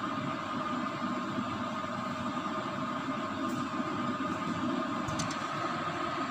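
Steady mechanical rumble and hiss with faint steady tones running through it.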